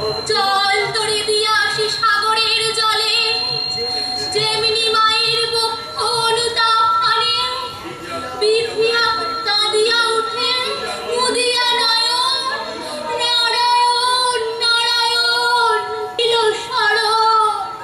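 A woman singing a song solo in a high voice, with long held notes.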